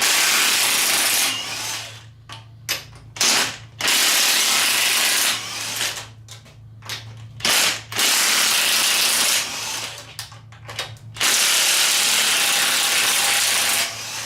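Cordless DeWalt impact wrench hammering in repeated bursts, some short and some lasting a couple of seconds, the longest near the end, as it breaks loose and runs out the tight cylinder head bolts of an LS4 V8.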